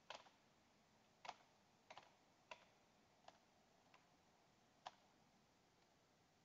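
Faint computer keyboard keystrokes: about seven separate, unhurried key presses over five seconds as the ipconfig command is typed, the loudest press coming about five seconds in.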